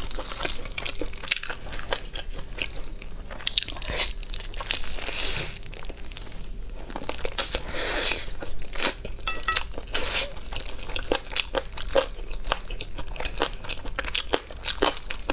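Close-miked eating: biting, chewing and tearing spicy whole roast chicken, a dense run of sharp, wet mouth clicks and smacks, with a louder, hissier bite about halfway through.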